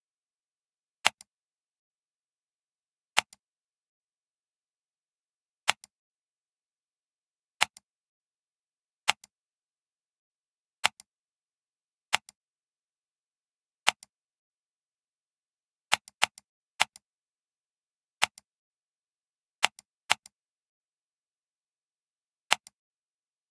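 Computer mouse button clicking about fifteen times at irregular intervals, a few close together. Each click is a sharp press followed a split second later by a fainter release, with silence in between.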